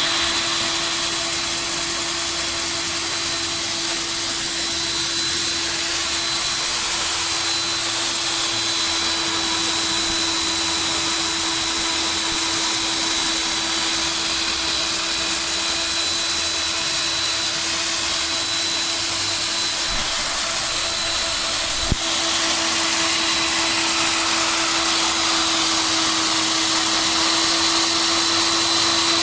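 Concrete core drill's electric motor running steadily with a constant whine, with a short click about two-thirds of the way through.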